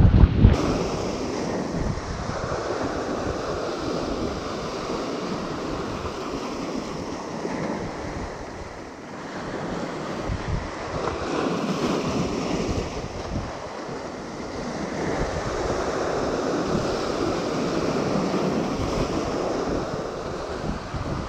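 Sea surf washing in over a rocky shoreline, swelling and easing every few seconds.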